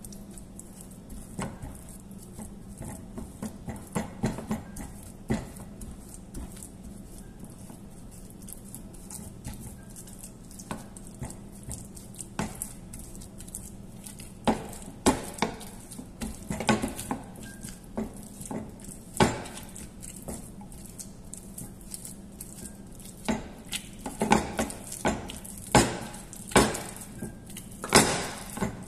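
Plastic potato masher pressing and knocking against a nonstick frying pan as canned red kidney beans are mashed. The knocks are irregular, sparse at first and coming thicker and louder in the second half.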